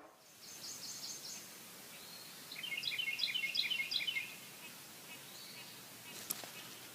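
Small songbird chirping over a steady outdoor hiss: a short run of high notes near the start, then a quick series of about ten repeated chirps a little before the middle, with a single faint click near the end.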